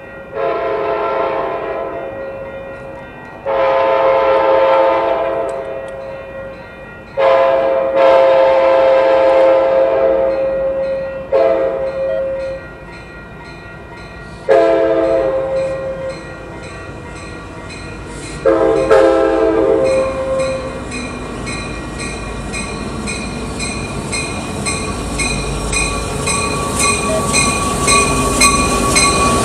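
Approaching passenger train's horn sounding six blasts, most of them long and one short, as a crossing warning. After the last blast a bell rings steadily about twice a second while the train's rumble grows louder.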